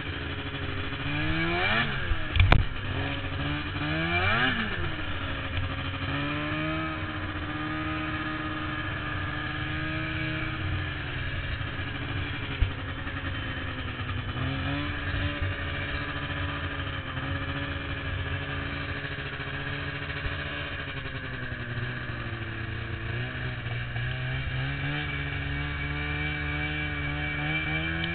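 A vehicle engine running, revving up and dropping back twice in the first few seconds with a sharp knock at the first rev, then running steadily with slight changes in pitch.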